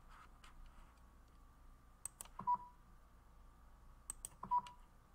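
Computer mouse clicking in two quick groups, about two and about four seconds in, each group ending with a short beep.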